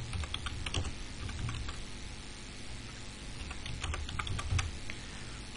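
Computer keyboard typing: irregular key clicks in short runs.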